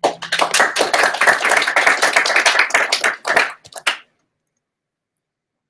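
Applause: many hands clapping for about four seconds, thinning to a few last claps before it stops.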